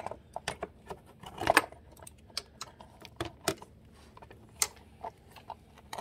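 Irregular sharp metallic clicks and clinks of a socket wrench on an extension being fitted to and turned on small bolts on a motorcycle, with louder clinks about a second and a half in and again a little after four and a half seconds.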